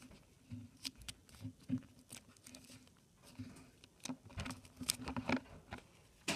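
Pokémon cards in clear plastic sleeves and holders being handled and flipped through: scattered light clicks, taps and rustles of plastic, with a sharper knock near the end.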